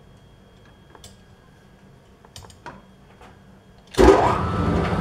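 A few light clicks and taps as a workpiece is adjusted in a metal lathe's chuck. About four seconds in, the lathe is switched on and starts running with a sudden loud rush of machine noise, its pitch rising as it comes up to speed.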